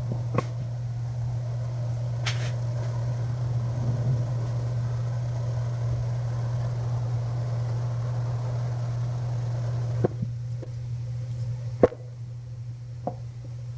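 Steady hum and airy hiss of a heat tool warming a plastic screwdriver handle so it can be pushed onto a ratchet's tang. The hiss drops about ten seconds in, and a few sharp clicks follow.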